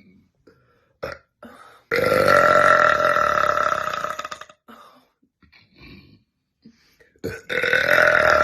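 A woman burping: one long, loud belch lasting about two and a half seconds starting about two seconds in, and a second loud belch beginning near the end.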